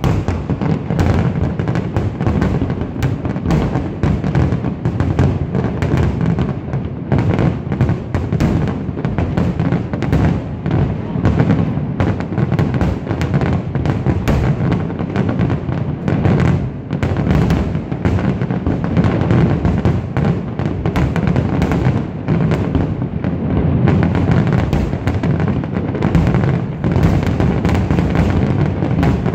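Large aerial fireworks display: a loud, unbroken barrage of shell bursts, bangs and crackle, going on without a pause.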